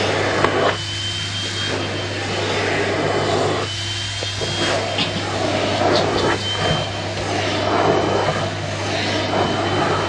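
Vacuum cleaner running steadily while its nozzle is run over a cat's fur, with a faint high whistle that comes and goes.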